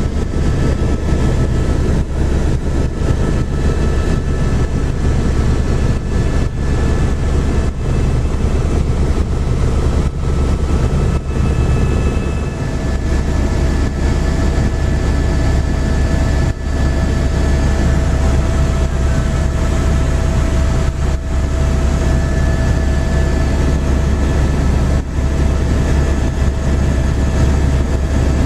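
Helicopter running steadily: a loud, even low drone from the rotor and engine, with a few faint steady whining tones above it.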